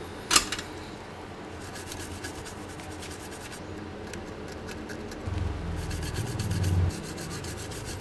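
Small brush scrubbing the surface of a graphics-card circuit board, a fast scratchy rubbing, to clean off corrosion left by leaked coolant. There is a sharp click about a third of a second in, and the scrubbing is louder for about a second and a half past the middle.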